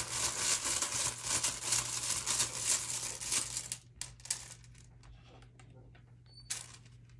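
Rune stones stirred and rattled in a cloth drawstring bag: a busy rustle with rapid small clicks for about four seconds, then a few scattered clicks as the stones settle and one is picked.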